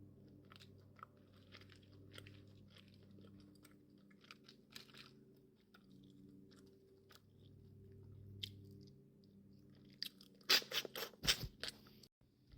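Close-miked eating of crawfish: soft, wet chewing and mouth clicks, then a burst of much louder crunching and cracking about ten seconds in.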